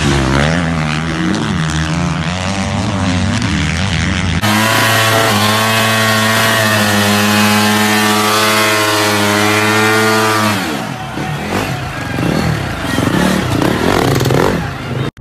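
Dirt bike engine revving unevenly through a rut. About four seconds in, a Husqvarna dirt bike engine is held at steady high revs for about six seconds while the rear tyre spins in a smoky burnout, then it drops off and revs in uneven blips.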